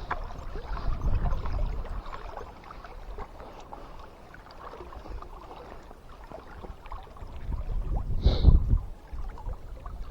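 River water flowing, with gusts of wind rumbling on the microphone about a second in and again, louder, near the end.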